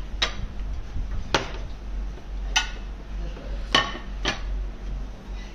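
Sharp clinks of tableware: a ceramic soup spoon against a ceramic soup cup and a small glass condiment bottle being handled, about five clinks spaced roughly a second apart.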